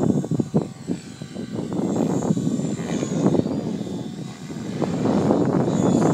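Electric RC helicopter (Align T-Rex 550) in aerobatic flight: its rotor blades make a rushing noise that rises and falls, over a faint high motor whine, getting louder over the last couple of seconds.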